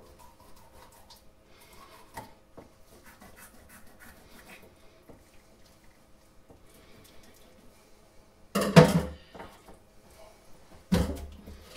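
A knife scoring the skin of a horse mackerel on a wooden chopping board, with faint scratching and clicking strokes. About nine seconds in comes a loud clatter as the knife is set down in the stainless steel sink, and near the end a thump as the fish is turned over on the board.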